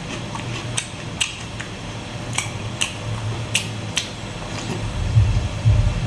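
Close-miked eating of squid salad: a series of sharp wet clicks and smacks, then a few louder low thuds near the end.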